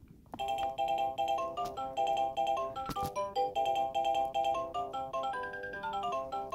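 A musical nightlight toy plays a tinny electronic melody of short, rapid notes, starting about a third of a second in. There is one brief click about three seconds in.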